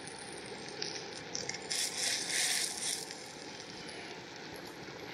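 Brown trout laid into a hot frying pan on a camp stove, sizzling in a short loud rush about two seconds in over a steady background hiss.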